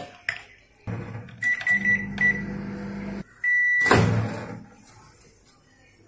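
LG microwave oven running with a steady low hum and a few short beeps; the hum stops about three seconds in, a longer beep sounds, and then the door clunks open.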